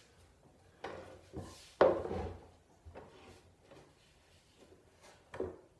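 Hand and rag rubbing along a clamped black walnut panel glue-up to wipe off squeeze-out, with a few wooden knocks; the loudest comes about two seconds in and another near the end.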